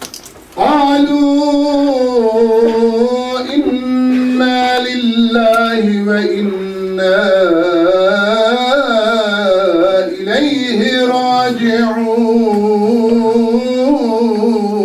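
A man reciting the Qur'an in the melodic tajwid style, drawing out long ornamented notes that rise and fall in pitch. The voice comes in about half a second in, with only brief breaths between phrases.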